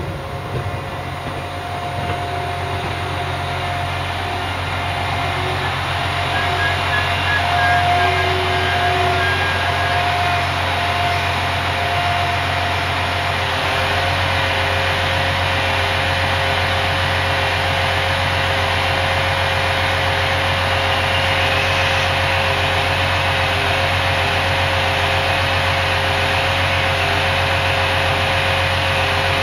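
A train's diesel engine running steadily, growing louder over the first several seconds and then holding level.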